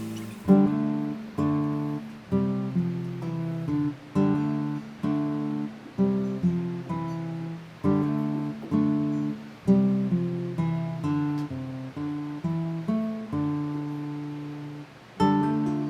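Background music: an acoustic guitar playing a plucked, fingerpicked tune, with notes and chords struck about every half second, each ringing and fading.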